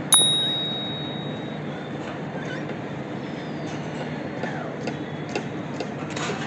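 A small metal bell struck once, a bright ding that rings out for about a second and a half. Soft ticks and faint short chirps follow over a steady low hum.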